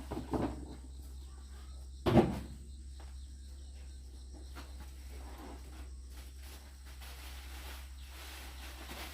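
A few short knocks near the start, then one loud, sharp knock about two seconds in, over a steady low hum.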